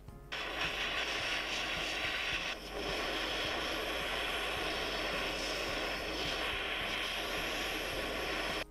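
Jeweller's gas torch hissing steadily as its blue flame heats a silver ring blank to anneal it, with a brief dip about two and a half seconds in. It cuts off suddenly at the end.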